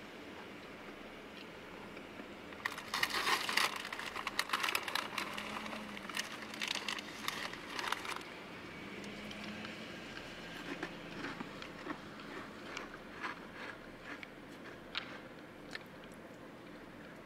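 Two white-tailed deer bucks sparring: antlers clattering together and hooves scuffing through dry leaf litter. It starts as a dense spell of crackling and clicking about three seconds in that lasts some five seconds, then thins to scattered clicks.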